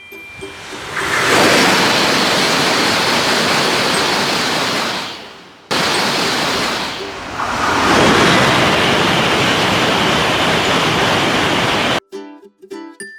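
Trains rushing past a level crossing, heard as a loud, steady roar without any tone in it. It swells about a second in and fades near the middle, then cuts straight into a second pass that stops abruptly near the end.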